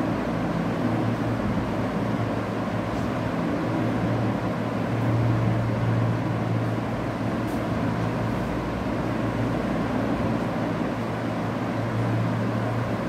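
Steady low hum over a constant rushing noise, with no distinct events.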